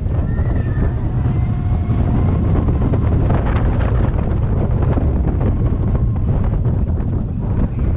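Wind buffeting the microphone over the steady low rumble of the Slinky Dog Dash roller coaster train running along its steel track, with a few faint high squealing tones in the first couple of seconds.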